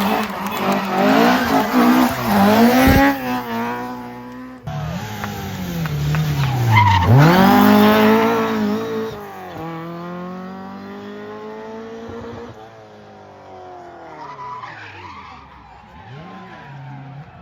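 Rally car engines revving hard at speed, pitch rising and falling through gear changes, with tyre squeal. After a cut about four and a half seconds in, another rally car brakes, accelerates past and fades into the distance.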